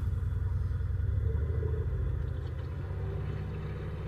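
2005 Chevy Impala's V6 engine running with a low, pulsing rumble that eases off a little after about two seconds. It is not a good sound: the engine is misfiring, and the owner suspects transmission trouble as well.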